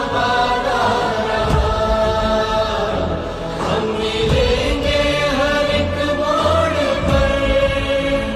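Background music: a choir-like chant of sustained, slowly gliding voices over a steady low drone.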